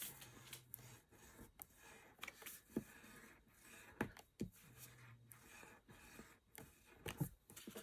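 Card stock being handled and pressed together on a craft table: soft rustling with a few light taps and clicks.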